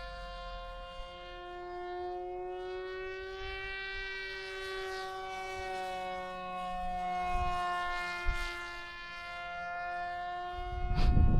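Brushless electric motor and propeller of a foam board RC Vulcan flying overhead: a steady whine that slowly rises and falls in pitch. A loud low rumble comes in near the end.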